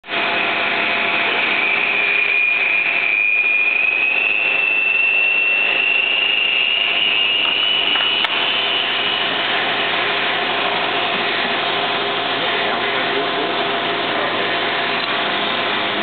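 Manual milling machine running steadily, with a high whine that climbs slowly in pitch over the first several seconds and then fades. A single sharp click comes about eight seconds in.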